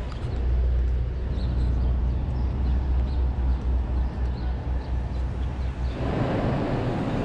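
Busy city-street ambience with a heavy, fluttering low rumble of traffic and wind on the microphone. About six seconds in it changes to the louder, even hubbub of the crowded Grand Central Terminal concourse.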